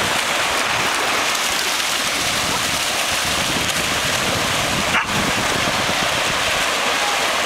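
Steady rushing noise of wind and small waves washing onto a sandy shore, with a single sharp click about five seconds in.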